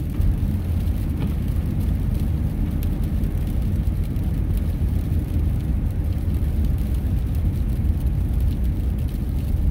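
Steady low road rumble heard from inside a moving car, the tyres and engine droning evenly at highway speed.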